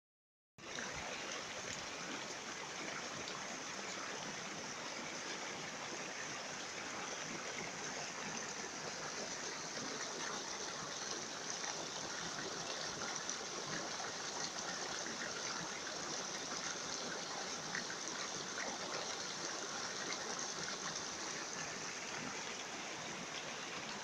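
Shallow river flowing steadily over rocks and riffles, an even rush of water that starts about half a second in.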